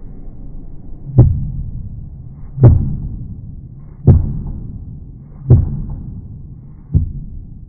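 Kitchen knife chopping through mushrooms onto a cutting board, heard slowed down. Five deep, evenly spaced thuds about one and a half seconds apart, each with a drawn-out fading tail.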